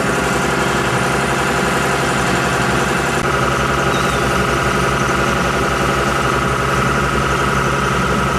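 Shrimp boat's engine running steadily, a loud even hum with a low throb, while the net is fished. A higher steady whine comes up louder about three seconds in.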